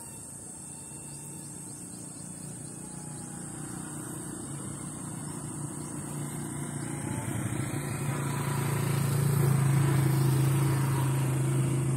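Electric motor and propeller of an RC SU-27 foam stunt jet (XK A100) buzzing steadily in flight, growing louder as the plane comes closer and loudest about nine to ten seconds in.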